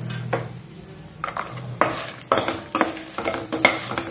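A perforated steel skimmer scraping and clinking against a steel kadai in a run of irregular strokes, coming faster from about a second and a half in, as dals, dried red chillies and cashews fry in hot oil with a light sizzle.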